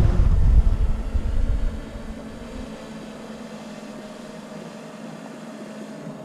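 Honeybees buzzing around an opened hive, a steady drone. A low rumble is loudest over the first two seconds, then drops away.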